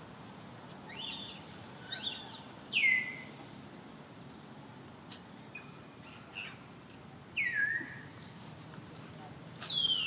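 Baby macaques giving short, high-pitched squeaky calls that fall in pitch, about five of them at uneven intervals.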